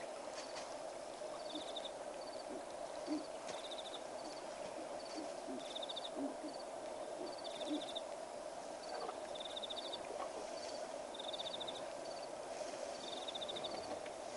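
Night-time chorus of calling animals: a steady drone, with a high, pulsed chirp repeating about once a second.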